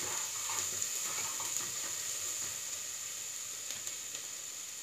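Chopped onion and garlic sizzling in hot oil in an aluminium pot: a steady frying hiss that fades slightly, with a few faint ticks.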